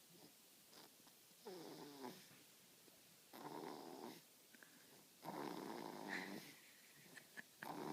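Baby snoring in his sleep, snoring like a little pug: three soft rasping breaths about two seconds apart.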